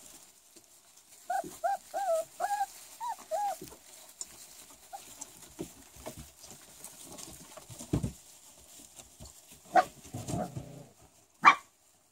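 Four-week-old Rottweiler puppies whimpering: a quick run of about eight short, high whines over two seconds, some bending up and down in pitch. Later comes a low thump, then two louder sharp sounds near the end, the last being the loudest.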